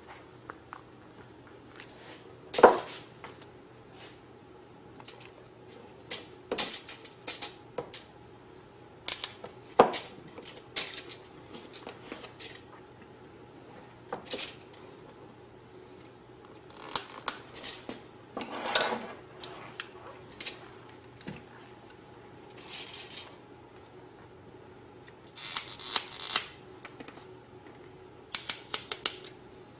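Hose clamps, hose-clamp pliers and other small metal parts being handled on a workbench while rubber fuel hose is fitted together: scattered sharp clicks and clinks with brief rustles. The loudest clicks come about three seconds in and about ten seconds in.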